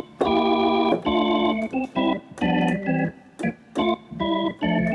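Organ preset on a Yamaha Montage M synthesizer playing a run of short, choppy chords in an upbeat rhythm. The voicing suits African-style upbeat music and praise songs.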